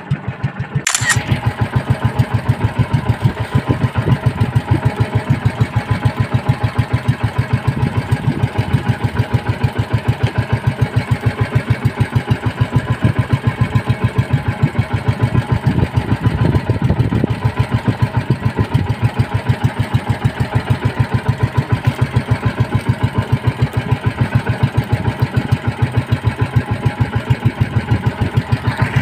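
Small outrigger fishing boat's engine running steadily with a fast, even putter.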